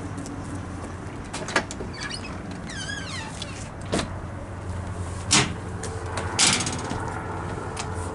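Truck camper entry door being unlatched and opened: a few sharp clicks and knocks, then a rattling clatter about six and a half seconds in, over a steady low hum.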